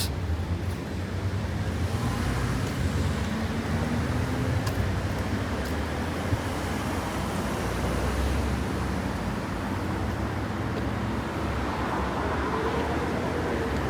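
City street traffic: road vehicles passing with a steady rush of road noise and a low engine hum.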